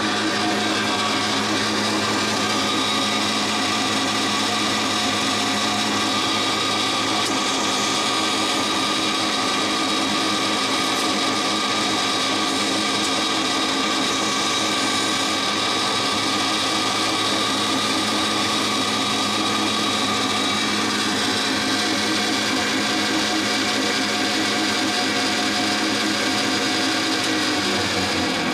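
DoALL C-70 horizontal band saw running steadily, its motor, drive and blade giving a constant machine hum and whine made of several steady tones; a low part of the hum drops away about seven seconds in.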